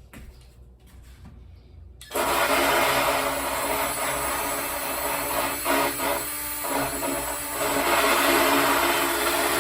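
Hyper Tough 20-volt cordless drill with a sanding disc attachment starts up about two seconds in and runs steadily, the abrasive disc grinding against the edge of a wooden tabletop; it eases off briefly around the middle, then picks up again.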